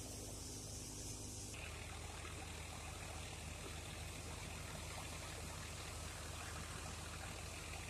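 Tractor engine running steadily and driving a trailed straw thresher, under an even rushing noise from the machine and the blown chaff. The sound changes abruptly about a second and a half in.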